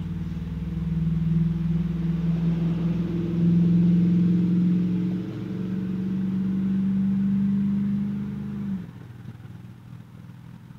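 A vehicle engine idling with a steady, even hum, which cuts off suddenly about nine seconds in.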